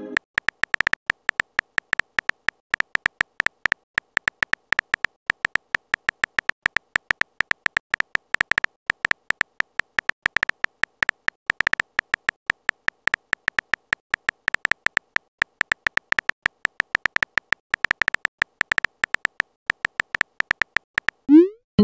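Keyboard typing sound effect: short, clicky beeps at a high pitch, several a second at an uneven pace, one per letter as a text message is typed.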